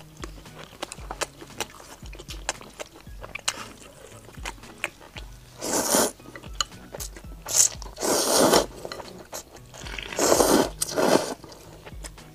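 Instant noodles in broth slurped up in several loud, drawn-out slurps, about six, eight and ten to eleven seconds in, among small clicks of chewing and eating. Soft background music with a steady beat plays underneath.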